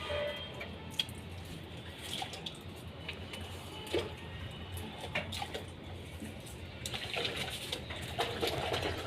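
Water running and splashing with scattered knocks and clicks, typical of a solar water heater being drained and cleaned during a service.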